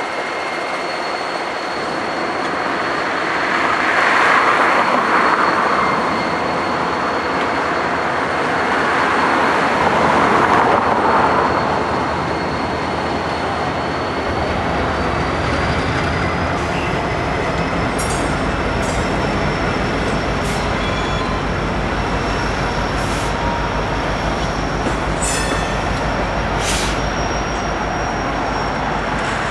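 Two Norfolk Southern diesel locomotives passing with engines running, each swelling louder as it goes by. About halfway through, a train of RoadRailer trailers follows with a low rolling rumble and scattered clanks. A thin, steady, high wheel squeal runs under it all.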